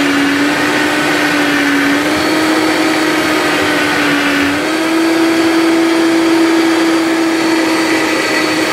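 Vitamix Total Nutrition Center blender running at speed, grinding chopped coconut flesh with water into coconut milk. Its motor hum holds steady and steps up in pitch a few times, most clearly just under halfway through.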